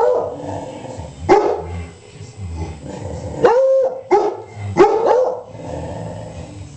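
A dog barking: about six sharp barks in the first five seconds or so, the one about three and a half seconds in held a little longer than the rest.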